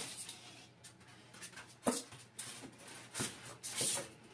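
Polystyrene foam packing blocks being lifted out of a cardboard printer box, scraping and rubbing against the cardboard and the printer's plastic wrap in several short scratchy rustles.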